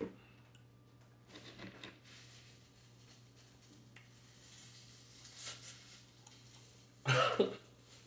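Quiet eating sounds over a low steady hum, then a man coughs once, sharply, about seven seconds in.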